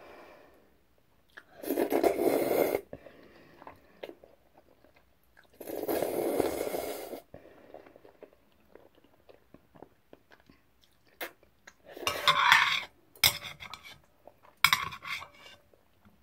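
Jjajang ramen noodles being eaten: two loud slurps, about two and six seconds in, then chewing with a few clicks of utensils against the bowl near the end.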